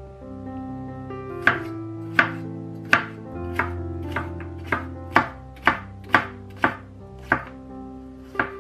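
A series of sharp knocks, about a dozen at roughly half-second intervals, over background music with held notes.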